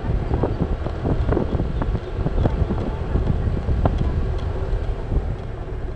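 Wind buffeting the microphone of a Honda motorcycle cruising steadily at about 46 km/h, in irregular gusts over a low rumble, with the engine's faint steady hum underneath.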